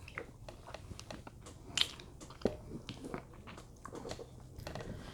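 A person chewing and biting food close to the microphone, with soft wet mouth clicks. Two louder bites come about two and two and a half seconds in.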